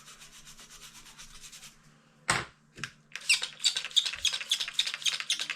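A small brush scrubbing flux off a circuit board wet with isopropyl alcohol, in fast back-and-forth strokes. It pauses about two seconds in with a couple of sharp knocks, then resumes louder at about five strokes a second.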